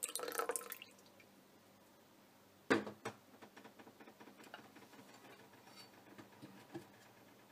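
Lemon juice poured from a small glass into a blender jar, a short splash in the first second. About three seconds in comes a sharp knock, followed by faint scattered ticks.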